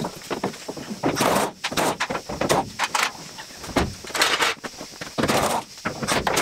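Air-powered wrench running in a series of short bursts, about seven, as it loosens the bolts on a car door's hinges.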